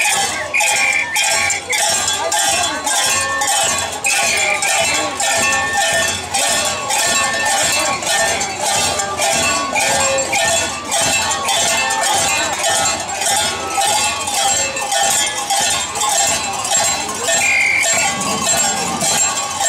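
Dancers' metal cowbells clanging together in a steady quick rhythm, a little over two strikes a second, with crowd voices and brief shouts in the background.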